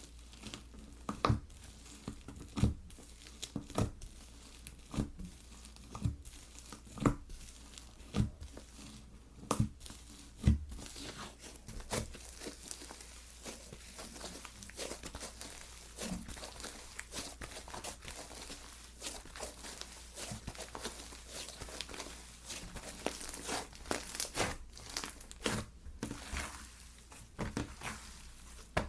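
Slime worked by hand, with sharp wet pops about once a second for the first ten seconds, then a dense, steady crackling.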